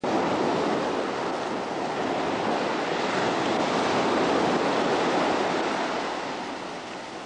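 Sea surf washing onto a sandy beach: a steady rush of breaking waves.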